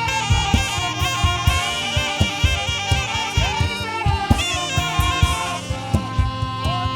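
Live saxophone playing a melody over a band, with drums keeping a steady beat.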